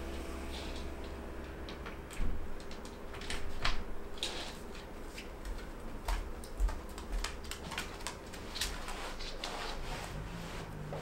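Irregular light clicks and knocks of someone moving about a small room with a wooden floor, handling things at the window and stepping barefoot. A faint steady hum fades out in the first couple of seconds.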